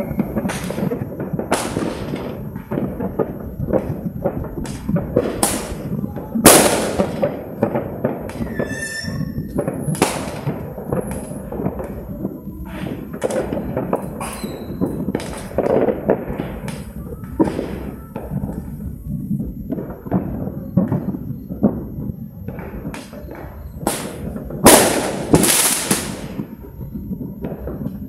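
New Year fireworks and firecrackers going off in a dense, continuous run of bangs and crackling, with the loudest blasts about six seconds in and again near the end.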